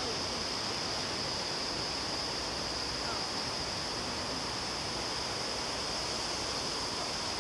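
Steady, even background hiss with a faint high-pitched whine in it. No footfalls or barks stand out.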